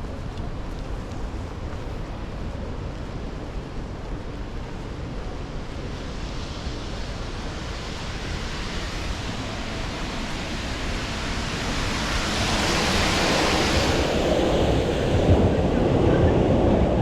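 Steady hiss of rain and strong wind on an urban street, with wind buffeting the microphone. The hiss swells in the middle, and a louder low rumble builds near the end.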